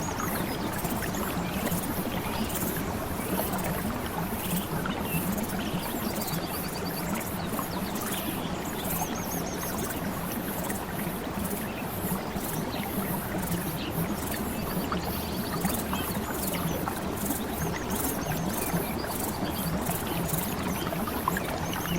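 Steady flowing water, a continuous rushing and trickling, with short high trilling calls breaking in every few seconds.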